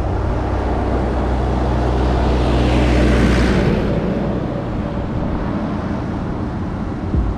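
Tractor engine passing close by: a steady low engine note that swells to its loudest about three seconds in and then fades, with another tractor's engine approaching behind it.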